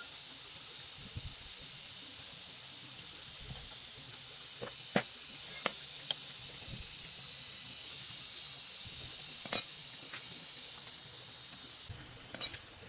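Small metal engine parts and tools clinking sharply a handful of times, loudest about six and nine and a half seconds in, as parts are taken off a small motorcycle engine and set on the concrete. A steady high hiss runs underneath.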